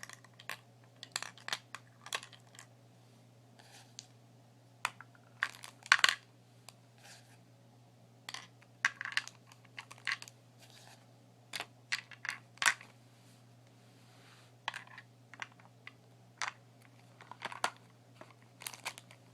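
Makeup containers clicking and tapping as they are set into and moved around a small makeup organizer. The clicks are irregular and sharp, some in quick clusters, with the loudest about six seconds in.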